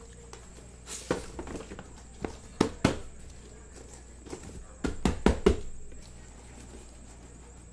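Corrugated cardboard shipping case being handled as it is opened and lifted off a stack of boxes: scrapes and sharp knocks, in two groups, the second a quick run of four or five knocks about five seconds in.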